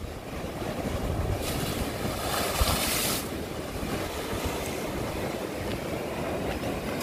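Sea waves breaking and washing against a seawall, with a louder surge of surf hiss from about one and a half to three seconds in. Wind rumbles on the microphone.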